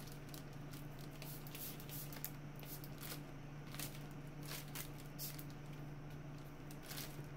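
Trigger spray bottle of sanitizer giving repeated short spritzes onto a plastic grain spawn bag, the bag's plastic crinkling as it is handled, over the steady hum of a laminar flow hood.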